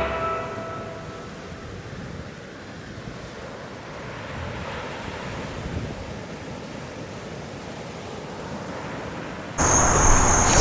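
Ocean surf breaking and washing in: a soft, steady rush of waves. About a second before the end it cuts abruptly to a louder noisy background with a steady high-pitched whine.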